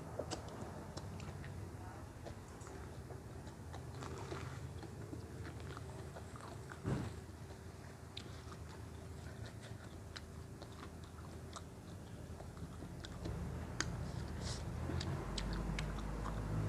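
A person biting and chewing crunchy salad vegetables, with many small scattered crunches. A single louder thump comes about seven seconds in.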